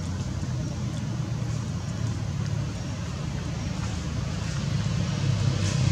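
A steady low engine hum under a faint outdoor hiss, growing louder near the end.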